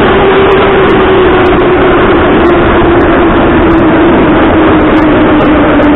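Moscow Metro train running, heard from inside the car: a loud, steady rumble and hiss of wheels on rails, with a motor whine that slowly falls in pitch as the train slows.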